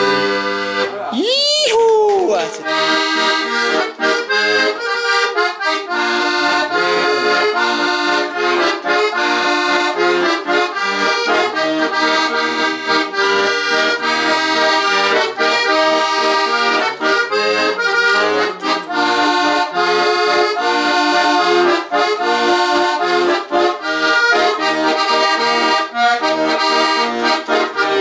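Button accordion playing a traditional tune, with melody and chords in a steady rhythm.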